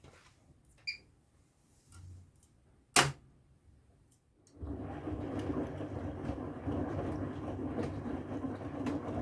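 Bosch HomeProfessional washing machine: a short beep, a single sharp loud knock, then about halfway through the machine starts up with a steady rushing sound over a low hum.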